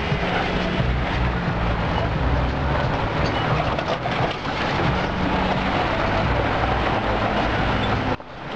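Vehicle engine running steadily in low gear, with the rumble and crunch of tyres over a rough dirt and gravel track, heard from inside the cabin. The sound drops away briefly near the end.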